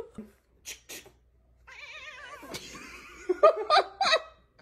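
A domestic cat yowling: one long wavering call, then a run of short broken calls near the end, with a few faint clicks before it.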